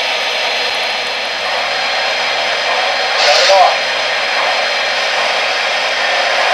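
O-gauge model steam locomotives running with a steady hiss. About three seconds in there is a short, louder burst with a brief wavering tone.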